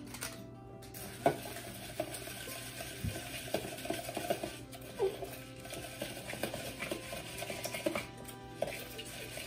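Crushed butter crackers being stirred into melted butter in a glass measuring bowl with a silicone spatula: irregular scraping and clicking against the bowl, with one sharp knock about a second in.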